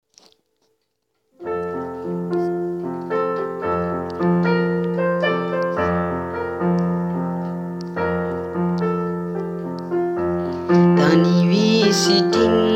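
Slow piano music: a song intro of sustained, decaying chords that starts about a second and a half in. The music gets louder near the end as a voice comes in.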